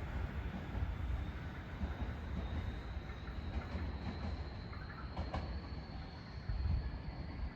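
Tobu Urban Park Line electric commuter train running along the platform with a low rumble, a faint high tone slowly rising in pitch, and a couple of sharp clicks about five seconds in.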